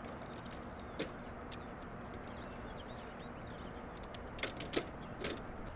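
A few light clicks and clatters of the aluminium boom and plastic element clips of a Yagi TV antenna being handled, one about a second in and several close together near the end, over a steady background hiss.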